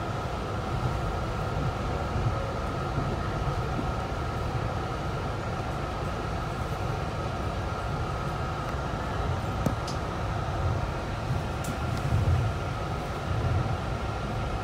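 Inside a moving Long Island Rail Road M3 electric railcar: a steady low rumble of the wheels on the track, a constant whine, and a couple of light clicks in the second half.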